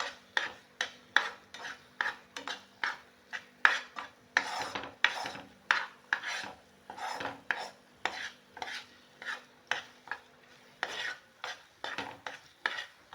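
A spoon stirring thick, nearly set dates halwa in a pan, scraping round the pan in quick strokes about two to three a second; the mixture has thickened and comes away without sticking.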